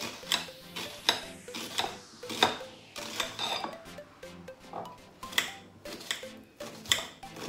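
Kitchen knife chopping red onion on a plate: irregular sharp taps of the blade on the plate, about one or two a second, over background music.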